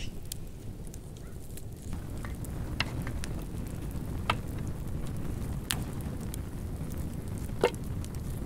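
Steady low rumble of wind on the microphone, with a few sharp clicks scattered through, the loudest near the end.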